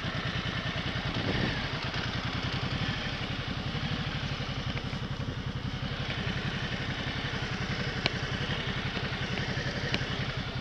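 Ducati Multistrada motorcycle engine running at low speed as the bike rolls slowly over grass, a steady, even pulsing with a few faint ticks.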